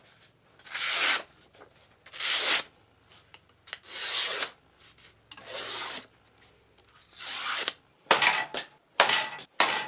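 Slow, rhythmic rubbing or scraping strokes, one roughly every second and a half, ending in a few quicker, sharper scrapes and clicks.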